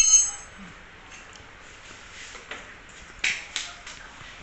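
A metal tool or part clinks and rings briefly, followed by a few short, sharp clicks and taps, typical of work on a motorcycle's rear wheel and chain.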